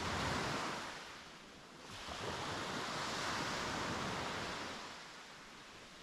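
Sea waves breaking and washing on a beach. One wave crests just at the start and fades within about a second, then a longer wave swells from about two seconds in and dies away near five seconds.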